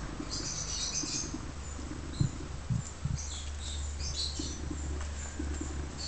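A dog digging in loose garden soil with its paws to bury a bone: clusters of quick scratching scrapes, with a few soft thumps about two to three seconds in.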